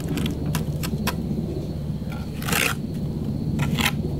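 Mason's trowel scraping and tapping on a concrete block while packing mortar into its core around an anchor bolt: a few short clicks and one longer scrape about two and a half seconds in, over a steady low hum.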